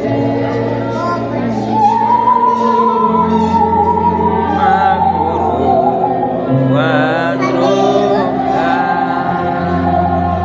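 Musical saw, a handsaw bowed to sing, playing a hymn melody in long sliding notes with a wavering vibrato over steady accompaniment.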